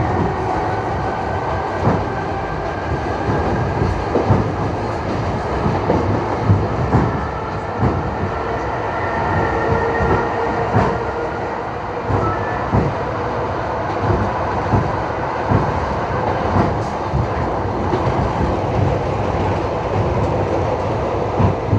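Train wheels knocking over rail joints as the train runs along, over a steady rolling rumble. Thin whining tones come and go in the first half.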